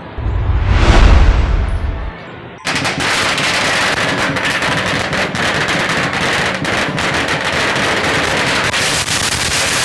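A string of firecrackers going off in a rapid, continuous crackle, starting a little under three seconds in. Before it, a deep rumbling boom with a whoosh swells and fades over about two seconds.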